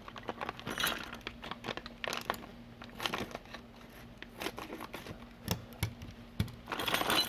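Packaging crinkling and tearing as new T-handle lock parts are unwrapped, in irregular crackles and rustles that grow louder near the end.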